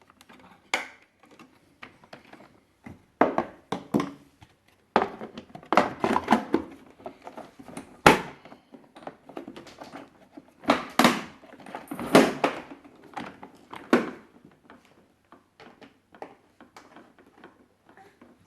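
Irregular clusters of knocks, clicks and thunks from the plastic parts of a Maxi-Cosi FamilyFix car seat base being handled and worked on.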